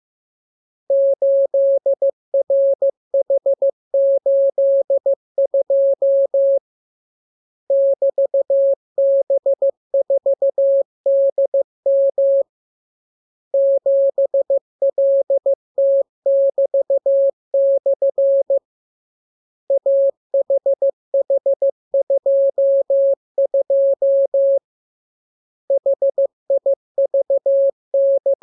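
Morse code practice tone: a single steady beep keyed in dots and dashes, sent in runs of about five seconds with pauses of about a second between them, as in a receiving-practice radiogram of letters, figures and signs.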